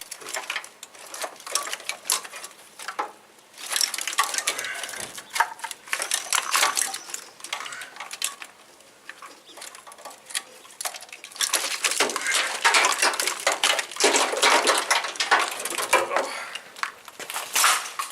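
Irregular clicking, clattering and rattling of plastic connectors, clips and loose wiring being handled and pulled free as an old engine wiring harness is taken out, in three busy stretches with short pauses between.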